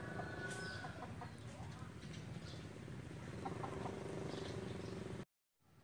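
Faint outdoor background noise with a few short bird calls scattered through it, cutting off suddenly near the end.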